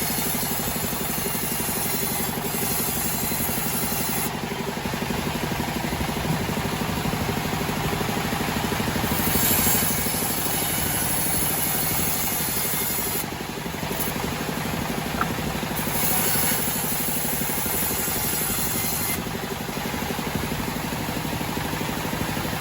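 Homemade band sawmill running steadily, its power unit droning under a high hiss that comes and goes several times.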